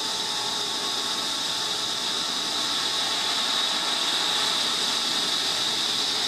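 Delta Unisaw cabinet table saw running at speed: a steady hiss of the spinning blade and motor with a high whine on top. It runs smoothly with little vibration on new link belts.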